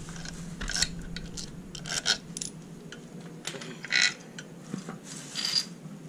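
Steel tools and fittings clinking against a Vespa's aluminium engine crankcase while a crankshaft seal-fitting tool is bolted on by hand. There are about four separate short metallic clinks, each ringing briefly.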